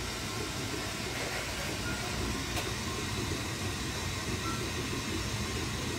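Steady rushing noise of a glassworking torch flame burning at the bench, with one faint click about two and a half seconds in.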